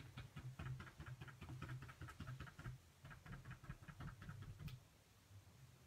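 Makeup wedge sponge pouncing acrylic paint through a plastic stencil: a fast, faint series of dabbing taps, several a second, that stop near the end.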